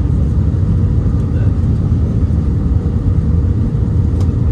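Steady low rumble of an Airbus A319's engines and rushing airflow heard inside the passenger cabin on short final approach, with a faint steady tone. A single light click comes near the end.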